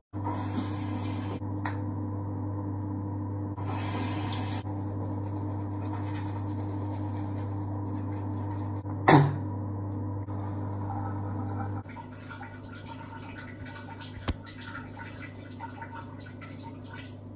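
Teeth being brushed at a bathroom sink with water running, over a steady low hum. About nine seconds in there is one short, loud sound that falls in pitch. The hum stops about twelve seconds in, leaving a quieter room with a single click.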